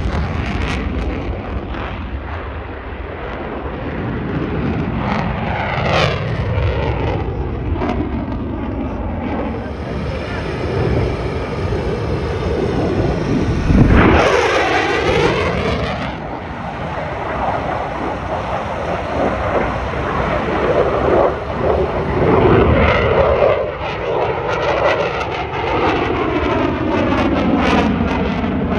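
F/A-18 fighter jet's engines roaring as it flies a low display pass, the sound sweeping up and down in pitch as the jet moves across and around. It is loudest about halfway through, a sharp rushing peak as the jet passes closest.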